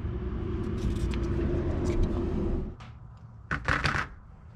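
A steady mechanical hum and rumble with a held tone, cutting off a little over two and a half seconds in, followed by a short clattering burst near the end.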